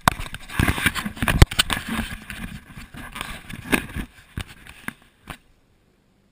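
Close scraping, rubbing and a string of sharp knocks from the camera being handled and turned, starting suddenly and stopping a little past five seconds in.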